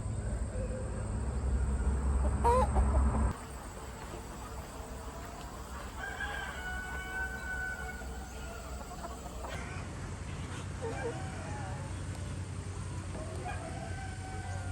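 Chickens clucking, with a rooster crowing once, a long held call of about three seconds, near the middle. A low rumble is the loudest sound during the first three seconds and stops suddenly.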